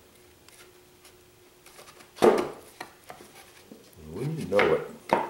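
Thin wooden parts of a model canoe knocking and rubbing against each other and the wooden workbench as they are handled: one sharp knock about two seconds in, then a rougher stretch of handling noise and a short sharp click near the end.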